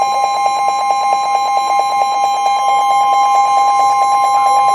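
Emergency Alert System attention signal on a weather radio: a loud, steady electronic tone with a second, slightly lower tone pulsing rapidly alongside it. It announces an incoming severe thunderstorm warning.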